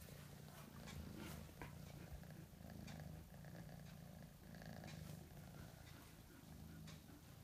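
Maine Coon kitten purring softly, a low steady purr that swells and fades about every two seconds with its breathing.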